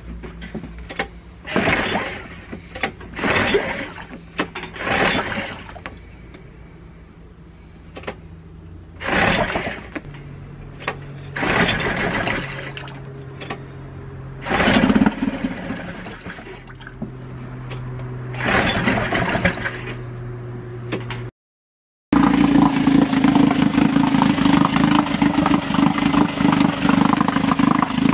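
Yamaha F2.5 single-cylinder four-stroke outboard on its test run after a carburetor clean: repeated short loud bursts over a low steady engine note as it is started and worked. After a brief break the engine runs steadily and louder with its leg churning water in a test tub.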